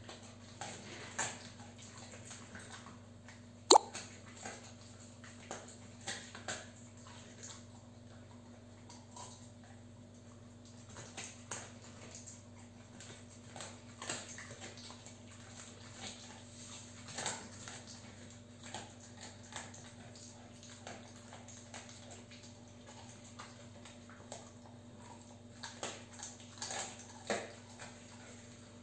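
A dog gnawing and crunching on a chew treat: irregular sharp cracks and clicks of teeth on the treat, with one loud crack about four seconds in and clusters of cracks near the end.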